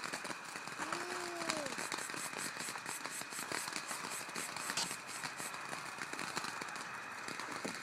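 Small consumer ground firework crackling with a dense, steady spray of fine pops.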